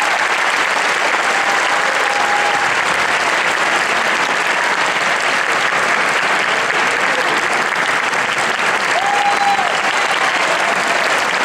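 Audience applauding steadily after an a cappella song, with a few voices cheering above the clapping about a second in and again near the end.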